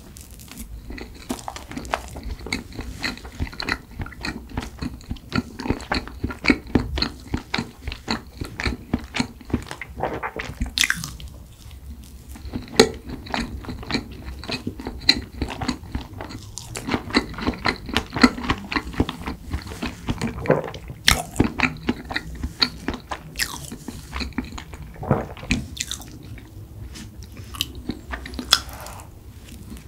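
Close-miked chewing of strawberry rice cake, wet mouth smacks and squelches coming several times a second.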